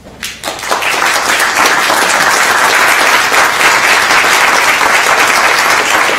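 Audience applauding: a few scattered claps at first, filling out within about a second into steady, dense applause.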